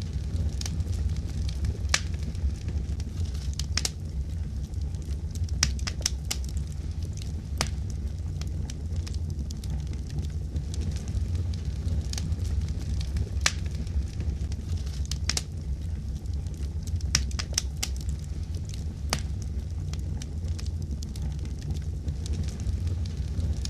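Wood fire crackling: a steady low rumble of flames with frequent sharp, irregular pops and snaps.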